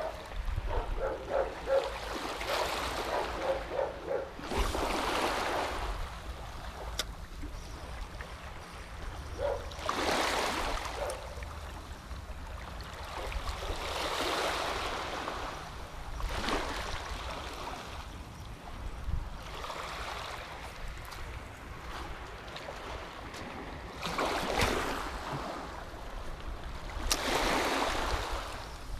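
Small sea waves washing in against the shore, a swell every few seconds, over a steady wind rumble on the microphone.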